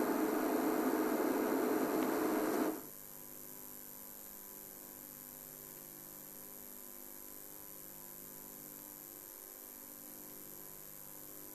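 Game-drive vehicle's engine idling, switched off abruptly about three seconds in. After that only a faint steady electrical hum remains.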